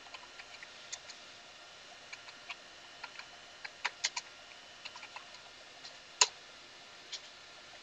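Computer keyboard keystrokes as a command is typed: quiet, irregular clicks, a few at a time, with one louder key press about six seconds in.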